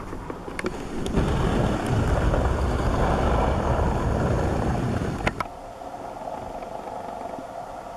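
Loud rumbling noise on the camera's microphone while the camera is moved, ending in a sharp click about five seconds in, then a quieter steady hiss with a faint hum.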